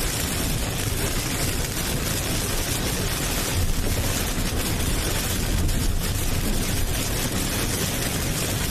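Steady, loud roaring noise with a deep rumble, swelling briefly about three and a half and six seconds in.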